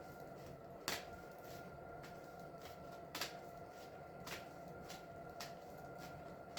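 Oracle cards being shuffled by hand, with a sharp card snap about a second in and a few softer ones spread through the rest, over a faint steady hum.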